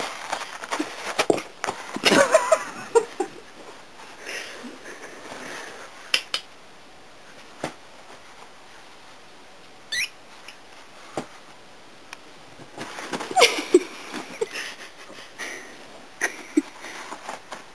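Intermittent rustling, scuffing and soft knocks of a kitten clawing and wrestling a paper towel roll on carpet, with longer bursts of rustling about two seconds in and again about thirteen seconds in.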